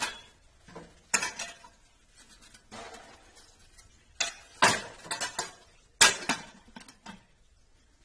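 A stainless-steel lidded serving dish being handled: its metal lid is lifted and tilted, clinking and scraping against the dish rim in a string of sharp knocks. The loudest clinks come about four and a half and six seconds in.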